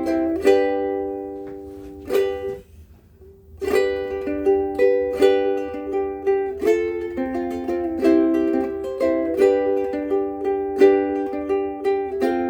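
Kala Metropolitan soprano ukulele of solid trembesi wood, with Worth Brown strings, played in chords about twice a second. The chords fade to a near gap about three seconds in, then the playing picks up again. The owner finds its sound beautiful but a little quiet.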